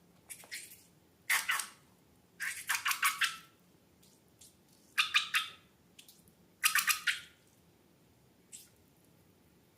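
Slime being squished and pressed, giving short bursts of wet crackling and popping as air pockets burst, about four main bursts a second or so apart.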